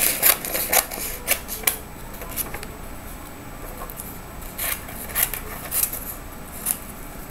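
Scissors snipping through a sheet of paper, with the paper crackling as it is handled. A quick flurry in the first two seconds, then separate snips every half second or so near the end.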